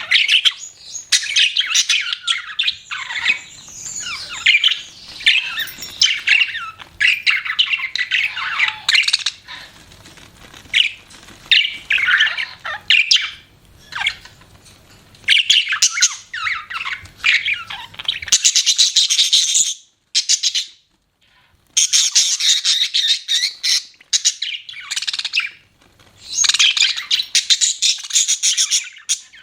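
Budgerigars chirping and chattering: a dense, busy mix of quick chirps, warbles and squawks, broken by a brief silence about two-thirds of the way through.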